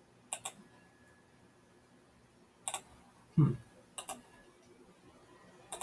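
Computer mouse clicking: a double click about half a second in, a single click, another double click about four seconds in and a last click near the end. A short low thump, the loudest sound, comes about three and a half seconds in.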